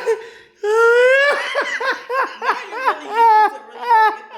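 A person laughing hard in a high-pitched voice: a long rising whoop about half a second in, then a run of quick ha-ha bursts.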